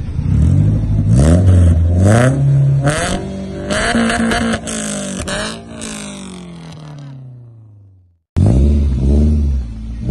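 Daihatsu Xenia engine revved at standstill through an NDK full-system aftermarket exhaust (short header, Hurricane resonator, DK 01 PRO muffler): several quick throttle blips, then a long rev that falls slowly back toward idle. After a short break, more quick revs.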